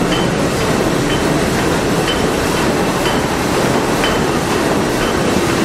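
The engine room of a Liberty ship under way at full speed: the triple-expansion steam engine and its machinery running with a loud, steady mechanical clatter. A faint light tick repeats about once a second.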